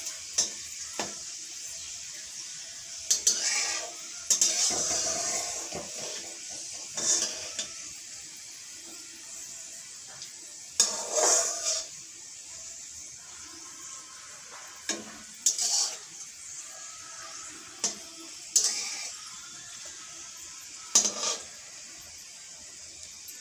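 Metal spatula scraping and stirring in a metal kadai in short strokes every few seconds. Under it, a steady sizzle of dry red chillies, panch phoron and bay leaves frying in hot oil.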